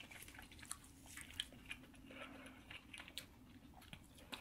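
Faint, close-miked chewing of fried chicken, with short wet mouth clicks and smacks scattered throughout, and a bite into another piece near the end.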